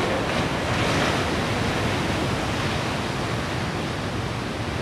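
Big waves breaking: a steady wash of surf and whitewater noise, swelling slightly about a second in.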